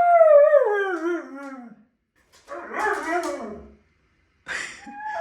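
Siberian husky howling, protesting at its owner pretending to leave without it. One long howl slides down in pitch, then two shorter, rougher howls follow.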